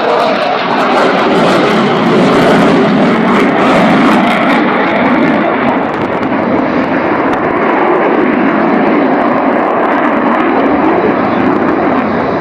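Fixed-wing aircraft engine noise from an airplane flying over, a loud steady rush that swells and eases slightly.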